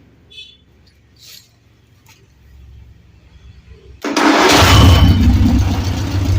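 VW engine running on LPG starts up abruptly about four seconds in and keeps running steadily. Before it, a few faint clicks.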